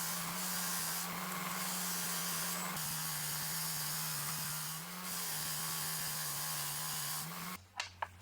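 Powered wire brush scouring rust off metal parts: a steady abrasive hiss over the even hum of its motor, the hum's pitch sagging slightly under load. It stops suddenly near the end, followed by a few sharp clicks.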